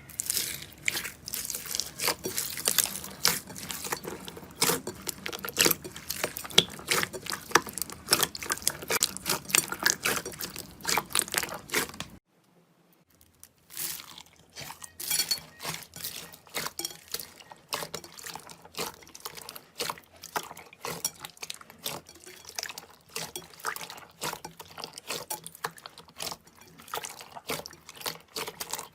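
Slime being squished, a dense run of wet clicks, pops and crackles. It cuts off about twelve seconds in, and after a second of silence a second stretch of slime squishing follows with sparser clicks.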